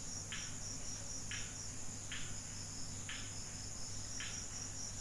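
Crickets trilling steadily in a high, evenly pulsing band. Soft scratchy rustles come about once a second as thin copper winding wire is handled.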